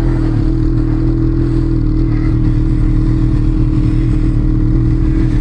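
Snowmobile engine running at steady, high revs under way.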